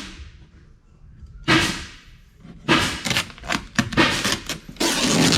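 Templating tape being worked by hand: a single loud rip about a second and a half in, then a fast run of rips and crinkles as strips are pulled off and pressed into place.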